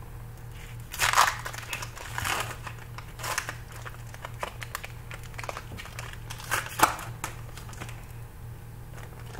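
Foil wrapper of a baseball card pack crinkling and being torn open in several short, irregular rustling bursts, the loudest about a second in and again near seven seconds.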